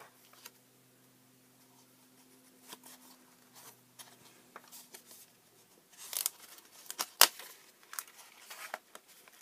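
Card stock being handled: light rustles, scrapes and taps of paper as a glued card panel is lined up inside a folded card and pressed into place, sparse at first and busier from about six seconds in, with one sharp click.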